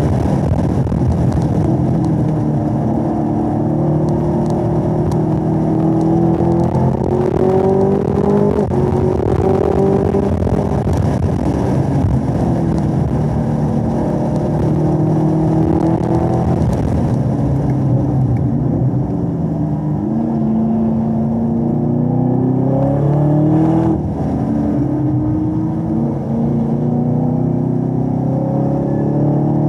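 2017 Camaro ZL1's supercharged 6.2-litre V8, heard from inside the cabin, running hard at high revs on track. Its pitch rises and falls repeatedly as it brakes and downshifts from fifth to third through the 10-speed automatic and pulls back through the corners.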